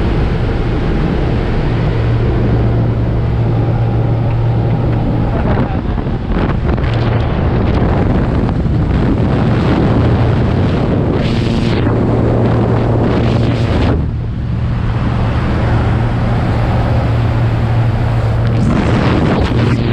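Small single-engine jump plane's engine and propeller droning steadily, with wind rushing in through the open jump door and buffeting the microphone.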